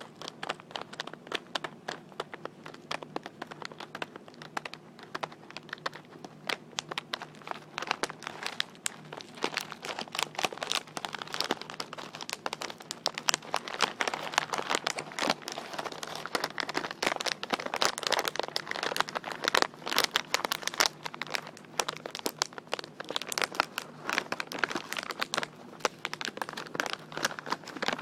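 Crinkly packaging being tapped and crumpled close to the microphone: a dense run of irregular sharp crackles, busiest through the middle.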